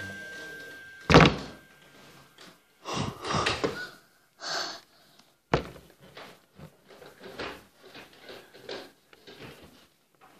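Scattered knocks, rubs and clicks of objects being handled and bumped in a small room, with one loud thud about a second in and a sharp click about halfway through.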